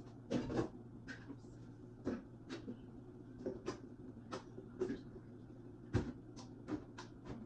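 Containers being handled and set down on shelves: a string of irregular knocks and clacks, about two a second, over a low steady hum.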